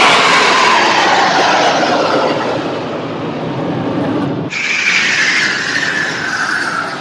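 Jet aircraft flying past, its loud engine whine falling in pitch as it goes by. About four and a half seconds in the sound cuts abruptly to another jet pass, its whine also falling.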